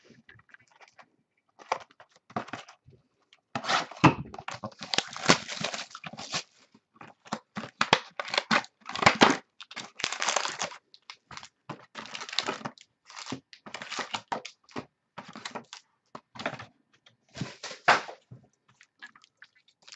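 Packaging of a box of football trading cards being torn open and handled: irregular crinkling and tearing of wrap and cardboard, in fits and starts, busiest about four to six seconds in and again around nine to eleven.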